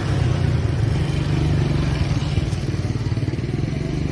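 An engine running steadily, a low continuous drone with no revving.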